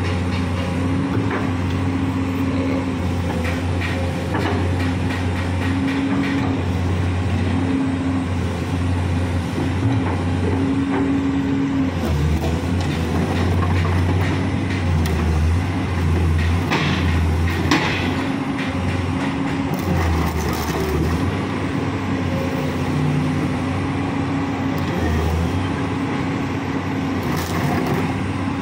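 Komatsu PC200 hydraulic excavator's diesel engine running steadily with a low hum, its pitch stepping up and down several times as the machine works. A few short hisses come in the second half.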